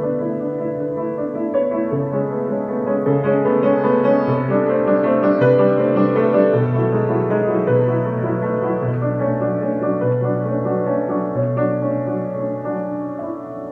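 Upright piano played solo in a jazz style: held chords over a bass line that moves about once a second, growing louder in the middle and softening toward the end.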